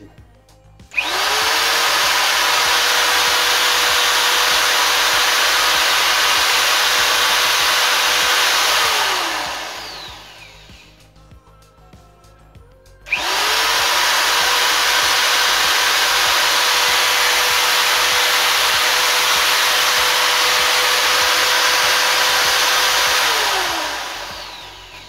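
Steinhaus PRO-MX850 850 W paddle mixer running unloaded at its top speed setting, switched on twice. Each time the motor's whine spins up quickly, runs steady for about eight to ten seconds, then winds down as the switch is released.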